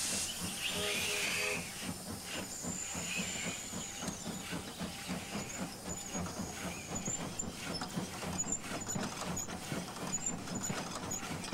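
Wood-burning American-type (4-4-0) steam locomotive running: steam hissing for the first couple of seconds, then a steady rapid clatter of its running gear and wheels.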